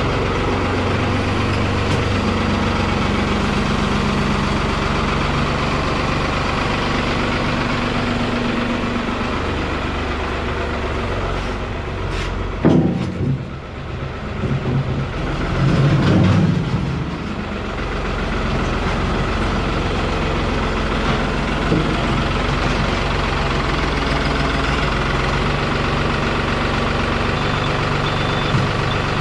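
Engine of a farm tractor or loader running steadily, its pitch shifting in steps as the throttle changes. There is a sharp clunk about twelve seconds in and a louder low surge a few seconds later.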